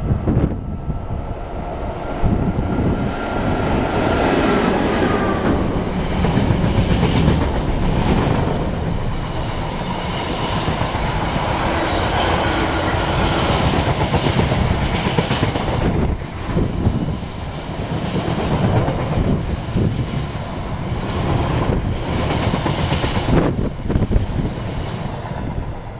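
Container freight train passing at speed. A high whine dips slightly in pitch and fades about five seconds in, then the long train of container flat wagons rumbles past with a rhythmic clickety-clack of wheels over the rail joints.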